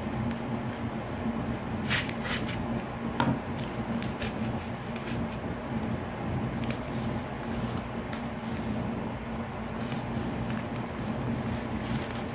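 A padded paper mailer being handled and opened: crinkling and rustling, with a few sharp crackles about two seconds in, over a steady low hum.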